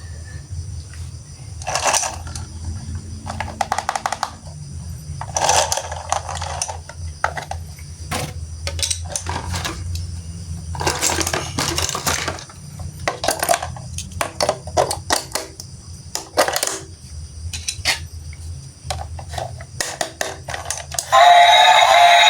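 Hard plastic toy parts clicking, tapping and clattering irregularly as they are handled and fitted together, over a steady low hum. Music comes in near the end.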